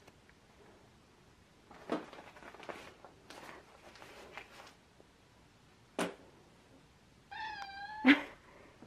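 Scuffling and knocking, with a sharp knock about six seconds in; near the end a cat meows once, followed at once by a loud thump.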